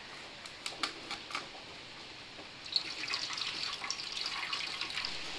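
A few short clicks, then milk pouring from a plastic packet into a steel pot of raw eggs as a steady liquid splashing that starts a little past halfway.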